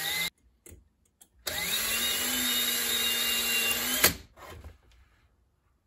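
Craftsman 19.2-volt cordless drill drilling out the spot welds that hold a NiCad cell's top terminal. The motor runs, stops briefly, then spins up again and runs steadily for about two and a half seconds before stopping with a sharp click.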